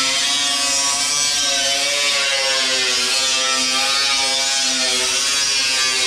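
Angle grinder grinding into the steel roof panel of a 1932 Ford coupe. The motor's whine dips and rises as the disc is pressed into the metal, over a steady grinding hiss.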